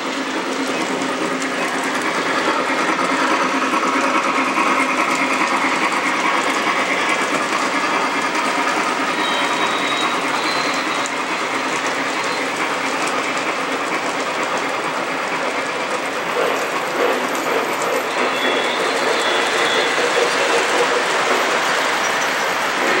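O scale model train cars rolling steadily on metal track: a continuous rattling clickety-clack of wheels over rail joints as a freight train passes close by, with passenger cars running on the level above.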